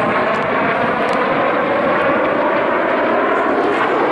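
Several BAE Hawk T1 jets of the Red Arrows passing overhead as they split in a vertical break, their turbofan engines making a loud, steady rushing roar with a faint whine.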